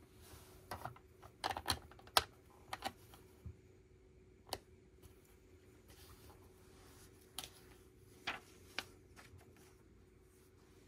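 Plastic Lego bricks clicking as they are handled and pressed together: a dozen or so sharp, irregular clicks, some in quick pairs.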